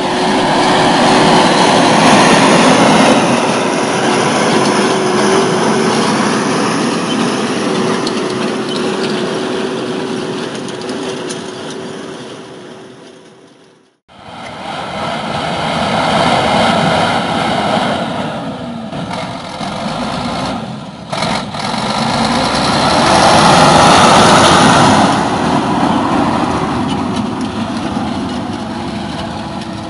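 LIAZ ŠT 180 forestry skidder's diesel engine running at work, its loudness rising and falling. The sound fades out and cuts off about halfway through, then picks up again and swells to its loudest a few seconds before the end.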